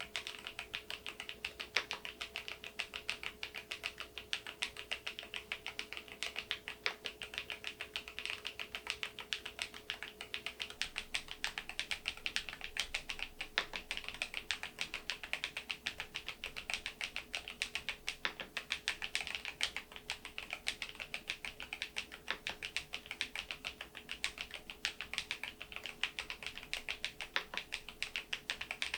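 Typing on a KEYSME AIM04 HE aluminium keyboard with magnetic Hall-effect switches: a quick, continuous run of keystroke clicks.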